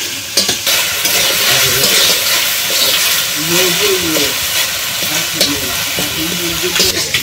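Metal spatula scraping and stirring in a metal karahi as taki fish with onion, garlic and green chilli sizzles in oil. The fish is being broken up into the spices, and the water has cooked off, so the mix is frying dry.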